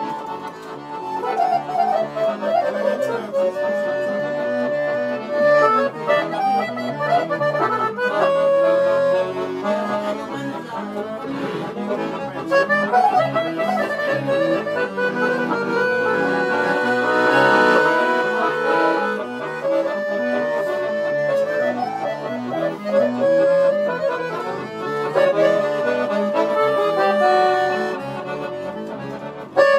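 Piano accordion played solo in a fast Romanian party-music instrumental: quick melodic runs between held notes, with a fuller chordal stretch about halfway through.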